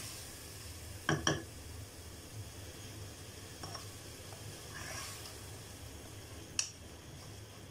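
Wooden spatula stirring onions and tomatoes in a pot, with faint sizzling from the frying. The spatula knocks sharply against the pot twice in quick succession about a second in and once more near the end.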